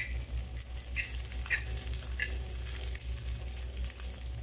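Scrambled egg sizzling in a non-stick frying pan while a spatula stirs and scrapes it, with several short scrapes in the first couple of seconds. A steady low hum runs underneath.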